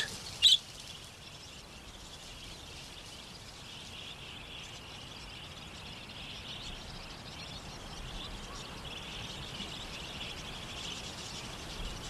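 Natural bush ambience: a steady high-pitched chorus of chirping, with one short, louder bird chirp about half a second in.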